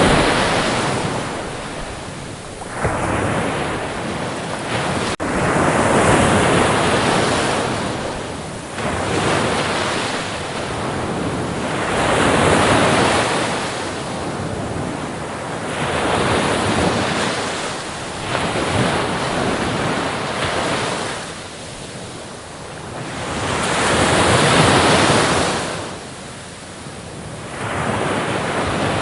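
Sea waves breaking and washing up a shore, one after another. The surf swells and fades every three to six seconds.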